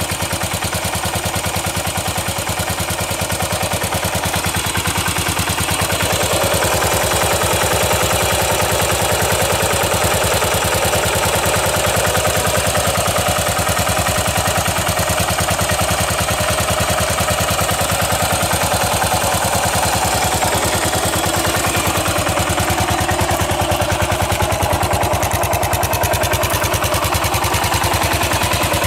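Customised Yamaha SR400's air-cooled single-cylinder four-stroke engine running steadily, its firing pulses evenly spaced and a little louder after about six seconds in. It runs without any abnormal noise.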